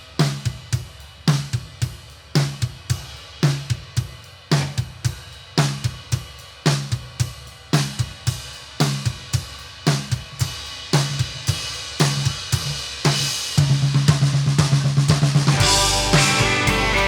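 Live rock band's song intro: a drum kit plays a steady beat on kick, snare, hi-hat and cymbals, builds into a denser fill, and then the rest of the band, with guitars and bass, comes in near the end.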